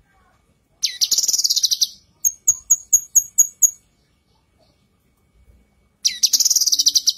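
Female cucak kinoi leafbird calling. A rapid trill about a second long, then a quick run of about seven sharp, high notes, and near the end another rapid trill.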